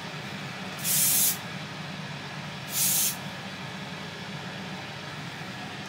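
Aerosol hairspray sprayed in two short bursts about two seconds apart, over a steady low hum.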